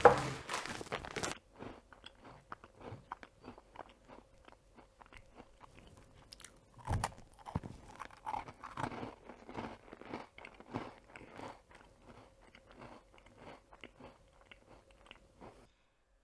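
Cookies being bitten and chewed: a quick, irregular crunching that goes on and on, with one louder knock about seven seconds in.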